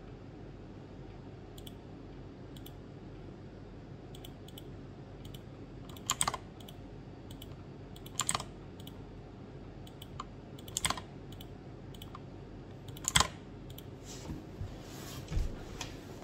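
Scattered clicks of computer keys being pressed, a few at a time with pauses of two or three seconds between, the loudest about two-thirds of the way through, over a steady low hum.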